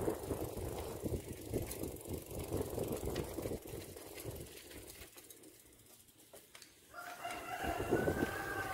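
A rooster crowing once, one drawn-out call starting about seven seconds in. Before it, wind rumbles on the microphone.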